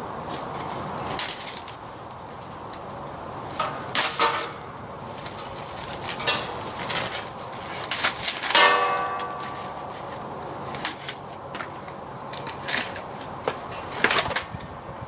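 Hand tools clinking, knocking and scraping against a steel beer keg while trying to pry it open, in irregular sharp metallic clicks, with a short ringing tone about halfway through.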